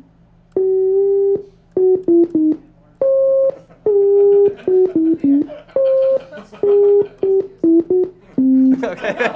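Sine-wave oscillator tones from a JavaScript Web Audio API synth running in Chrome, played as a quick run of about fifteen short notes at different pitches. Each note starts and stops abruptly with a click.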